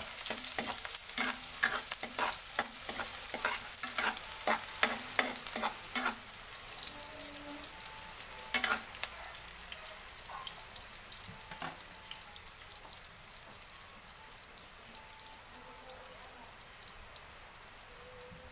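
Chopped onion and garlic sizzling in hot oil in a metal wok, stirred with a metal spoon that clicks and scrapes against the pan. The clicks come quickly for the first six seconds, with one sharp knock about eight and a half seconds in, then mostly steady sizzling.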